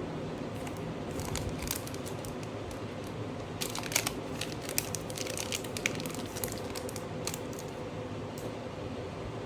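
Scattered crinkling and small sharp clicks from hands working on a smartphone during a battery replacement, over a steady background hiss. The clicks cluster in the middle, the sharpest about four and six seconds in.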